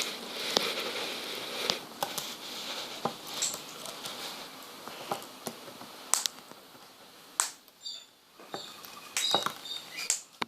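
Australian king parrot eating, its beak crunching food in irregular crisp clicks and cracks.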